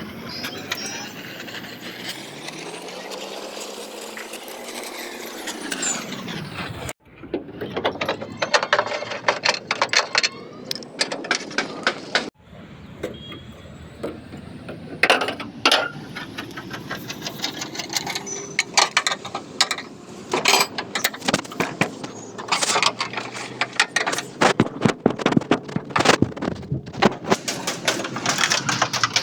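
Rapid, irregular knocks and clicks of metalwork on a truck's steel body panels, broken by abrupt cuts; the first few seconds hold a noisy sweep that rises and falls in pitch instead.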